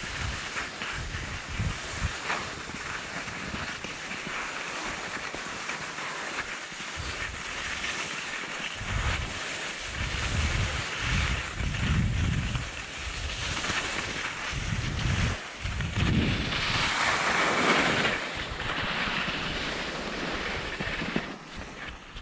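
Skis hissing and scraping over groomed snow, with wind buffeting the GoPro's microphone in low rumbling gusts; the hiss swells in the latter half and eases off near the end as the skier slows to a stop.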